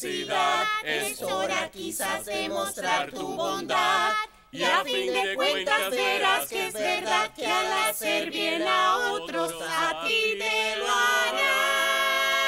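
Voices singing together in a cartoon song, with a brief pause about four seconds in and a long held chord near the end.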